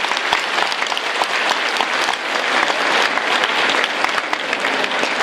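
A large audience applauding: many hands clapping, steady throughout.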